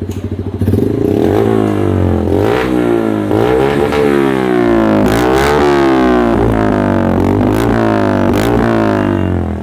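Motorcycle engine breathing through an SC Project GP-style aftermarket silencer fitted without a dB killer baffle. It idles briefly, then is revved in a quick series of about eight throttle blips, each rising and falling in pitch, and drops back toward idle near the end.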